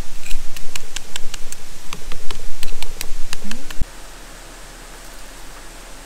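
Close-up eating: wet, crunchy chewing of tofu kimchi right at the microphone, a loose run of sharp clicks and crackles, with a short rising 'mm' hum, cutting off abruptly about four seconds in.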